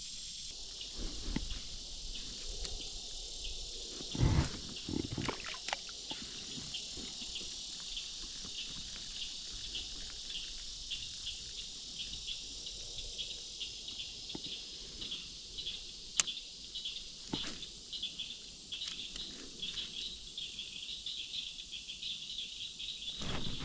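Steady, high-pitched insect chorus with a regular pulsing, broken by a few scattered knocks and thumps.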